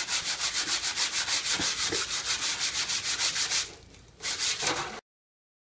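Sandpaper rubbed by hand over a wooden board in quick back-and-forth strokes, about six a second. It pauses briefly near the end, comes back for half a second, then cuts off abruptly.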